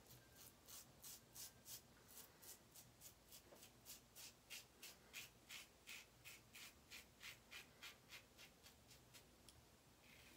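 Blackland Sabre single-edge razor scraping through lathered stubble in short, quick, faint strokes, about four a second.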